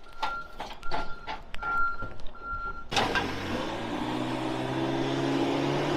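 A telehandler's warning alarm beeps about once every 0.7 s, with a few knocks. From about three seconds in, its diesel engine runs at raised revs as the hydraulic boom lifts a pack of bricks up to the scaffold.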